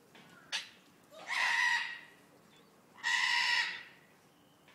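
Vulturine guineafowl calling: a short sharp note about half a second in, then two loud, harsh, rasping calls, each just under a second long, about a second and a half apart.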